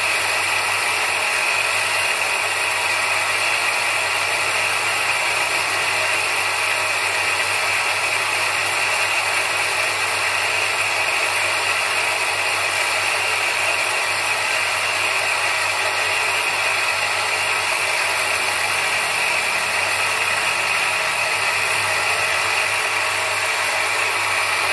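Bench grinder running steadily as an agate cabochon is polished on its spinning wheel: a constant low motor hum under an even hiss.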